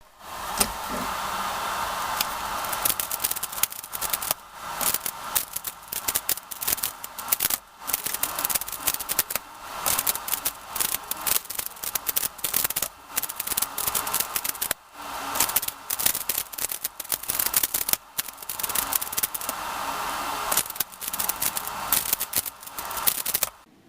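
Rapid plastic clicking and clattering of a 3x3 speedcube with GuHong pieces on a Lingyun core, its faces turned at speed in fast runs broken by a few short pauses.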